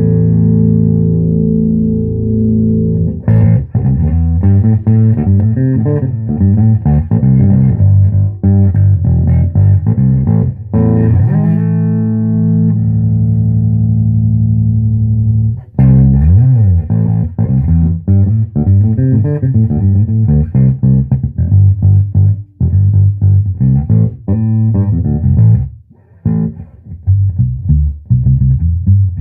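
Fender Precision Bass played through a 1966 Ampeg B-15N Portaflex tube amp: a held low note, then a run of plucked notes, a slide up into another long held note, and busier plucked lines in the second half.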